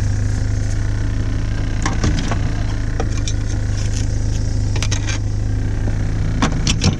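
A steady low mechanical hum with short clicks and knocks from things being handled, several of them close together about two seconds in, around five seconds in and near the end.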